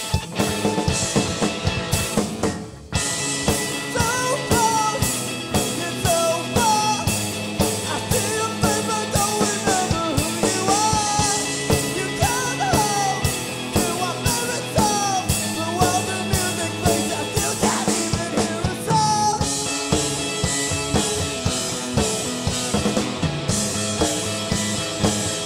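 Rock band playing live: drum kit keeping a steady beat under electric guitars and electric bass, with a male lead vocal singing from a few seconds in until about two-thirds of the way through; the last few seconds are instrumental.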